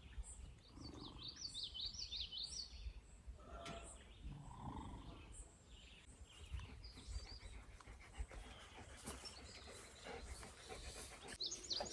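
Songbirds chirping in quick runs of high notes, about a second in and again near the end, over a low outdoor rumble.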